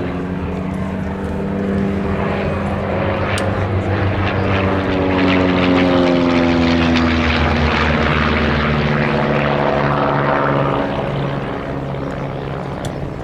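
A de Havilland Canada Chipmunk's piston engine and propeller running in a flypast. The note swells to its loudest about halfway through, then slowly falls in pitch.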